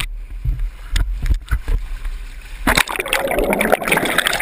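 Fishing boat at sea: a steady low rumble with a few sharp knocks, then about three seconds in a loud rushing, splashing noise of water against the boat.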